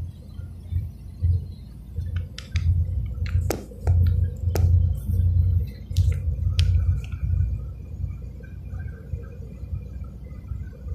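Low, uneven rumble of a car driving on a highway, heard from inside the cabin, with a handful of sharp clicks and taps in the middle and a faint steady high tone in the second half.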